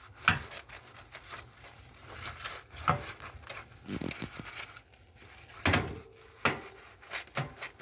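A few scattered knocks and clicks, about five over several seconds, with light rubbing between them, as plastic parts of a water dispenser are handled during cleaning.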